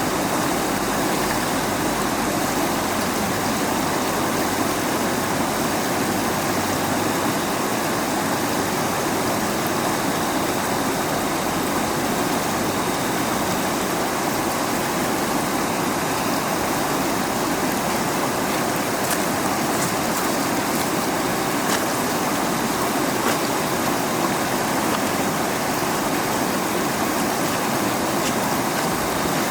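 Steady rush of flowing river water, even and unbroken, with a few faint ticks in the second half.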